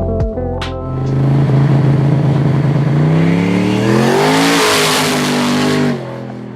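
Turbocharged 427 V8 in a 4WD Chevy Silverado accelerating hard, engine pitch rising about three seconds in under a loud rush of noise that peaks a second or two later. The sound stops abruptly just before six seconds.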